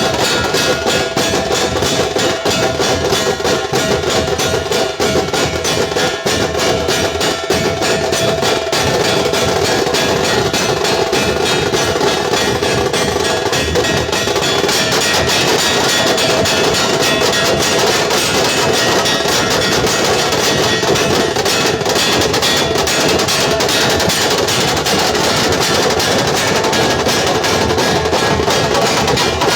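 Dhol-tasha troupe playing: dhol drums and tasha drums beating a fast, dense, loud rhythm without a break.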